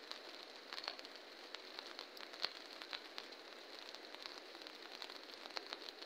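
Light rain: many irregular raindrop taps over a steady hiss, with a faint steady high-pitched tone underneath.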